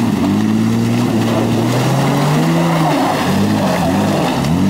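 Engine of a lifted 4x4 SUV crawling over trail rocks, its revs rising and falling back a few times as the driver works the throttle.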